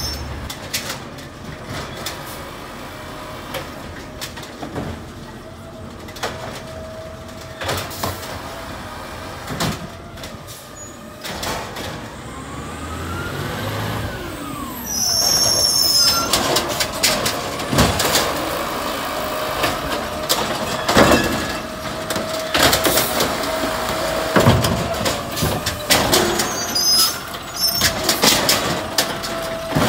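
Automated side-loader garbage truck's diesel engine running as the truck approaches along the curb and pulls up beside the bins, growing louder about halfway through. High brake squeals come as it slows, about halfway through and again near the end.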